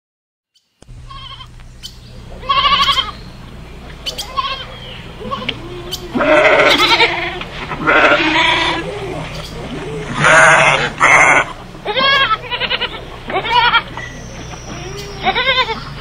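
Sheep bleating again and again: about a dozen wavering calls of different pitches at irregular intervals, some close together.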